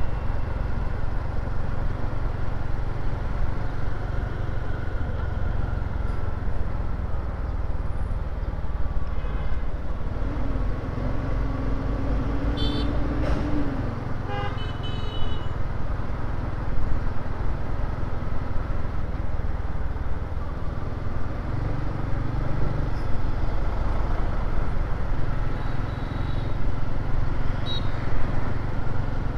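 Motor scooter running at riding speed with steady wind rumble, in city traffic. A few short vehicle horn beeps sound around the middle.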